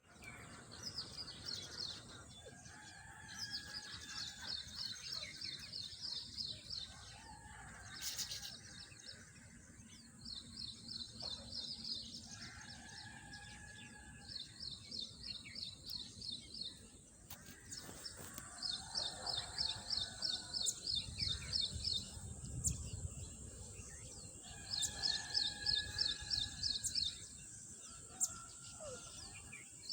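Small birds chirping: repeated bursts of rapid high chirps, each a second or two long, with lower drawn-out calls between them, over a steady high hiss.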